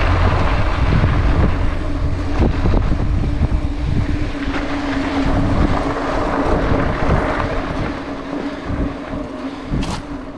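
Wind buffeting the microphone over the rolling rumble of a mountain bike's tyres on a dirt trail, easing off a little near the end.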